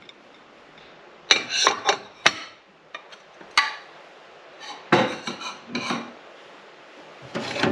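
Ceramic dinner plates clattering and clinking against each other as they are handled and stacked, in short groups of sharp clacks: a cluster about a second in, one near the middle, and another cluster around five to six seconds in.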